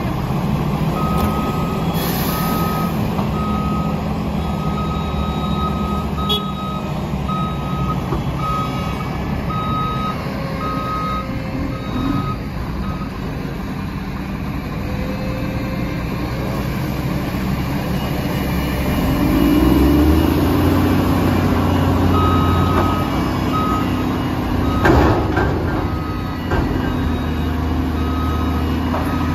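Diesel engine of a Mack LE front-loader garbage truck running, with a reversing alarm beeping steadily for much of the time. About two-thirds of the way through the engine revs up as the front-loader arms lift the leaf-filled container over the cab, and a sharp knock sounds shortly after.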